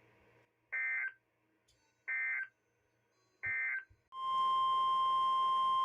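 Emergency Alert System data tones: three short bursts of warbling two-tone digital data, about a second and a half apart, marking the end of the alert message. About four seconds in, a single steady alert tone just above 1 kHz, the weather radio warning tone, begins and holds.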